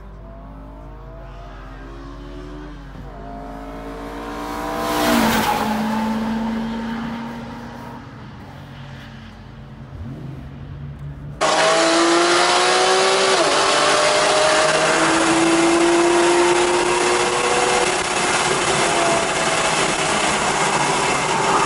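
A car's engine revs past on the track, loudest about five seconds in as it goes by, then fades. About eleven seconds in it gives way to a loud in-car sound of a Porsche 911 GTS flat-six accelerating hard, its pitch climbing and dropping as it shifts through the gears.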